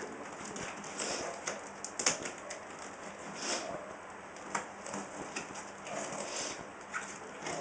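Camera packaging being handled: irregular rustling with scattered light clicks and knocks, loudest about two seconds in.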